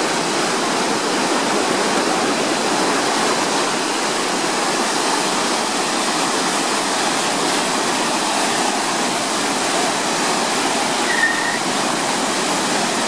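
Floodwater from an overflowing stormwater drain gushing and churning through a fence line and across the footpath in a steady, unbroken rush: the drain is over capacity after a downpour. A brief high note sounds near the end.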